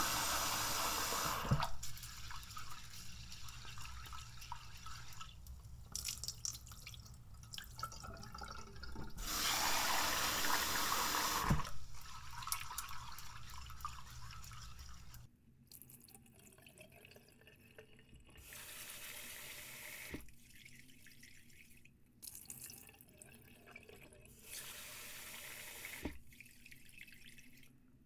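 Kitchen tap running into a stainless steel saucepan of rice, twice, at the start and again about ten seconds in, with the rice swished and rubbed by hand in the water between; later the rinse water is poured off into the sink in short spells.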